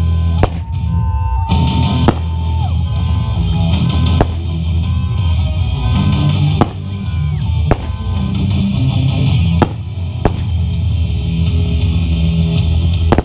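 Loud rock music with drums and guitar, broken by about nine sharp bangs at irregular intervals from fireworks bursting.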